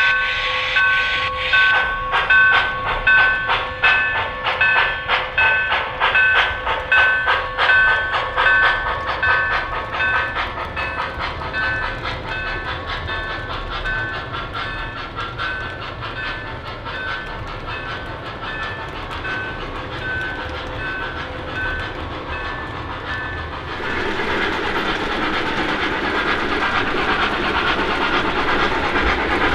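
An O gauge model steam locomotive's digital sound system plays rhythmic ringing and chuffing pulses, about two a second, that slow and fade over the first twenty seconds or so. About 24 s in, a steady steam hiss takes over.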